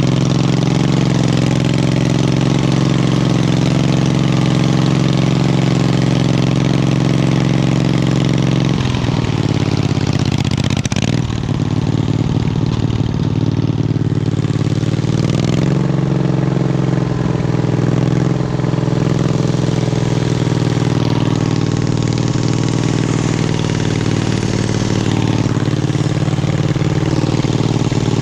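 Wheel Horse lawn tractor's engine running steadily under load. About nine seconds in, its speed drops, then climbs back up, and it goes on varying a little as the throttle and load change.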